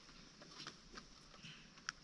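Chickens pecking: soft, irregular taps and clicks, a few a second, with one sharper click near the end.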